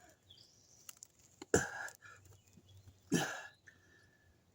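Two short, forceful vocal exhalations from a man, about a second and a half apart, coughs or effort grunts.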